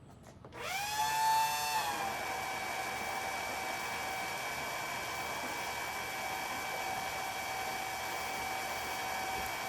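Electric water pump switched on to drain a pool: its motor whine rises as it spins up about half a second in, then runs on at a steady pitch with a hiss.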